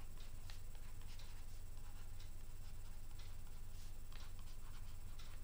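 Faint, irregular scratches and taps of a stylus writing on a tablet surface, over a steady low hum.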